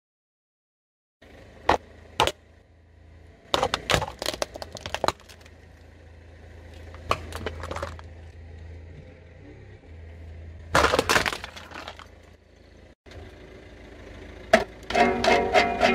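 Hard plastic toys cracking and snapping under a car tyre in several bursts, over the steady low hum of the car's engine running. Near the end, the strings of a toy plastic guitar are strummed a few times.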